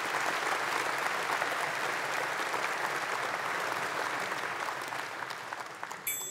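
Large arena audience applauding, a steady dense clapping that thins out near the end.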